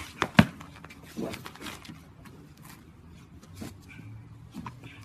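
Two people grappling on asphalt: one sharp thud about half a second in, then scattered scuffing and rustling of bodies and clothing, with a few short grunts.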